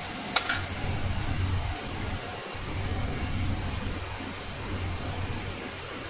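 Onion slices sizzling as they fry in oil in an aluminium kadai. About half a second in come two sharp metal clinks from the slotted spoon against the pan.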